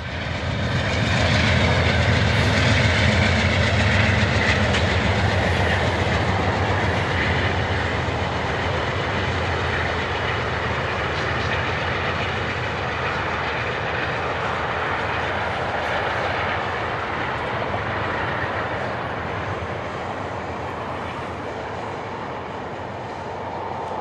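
Diesel-hauled passenger train passing close by: the low hum of the lead GE P42DC locomotive is loudest over the first few seconds. Then comes the steady rumble and rail clatter of double-deck Superliner cars rolling past, slowly fading as the train goes into the tunnel.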